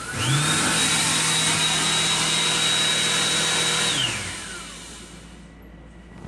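Built-in electric hand dryer of an M7 railcar restroom's sink unit, set off by a hand beneath it: its fan spins up, blows for about four seconds with a high steady whine over rushing air, then cuts out and winds down with a falling whine.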